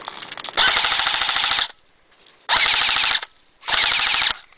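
Airsoft gun firing full-auto close by, in three rapid bursts: a long one of about a second, then two shorter ones, each stopping abruptly.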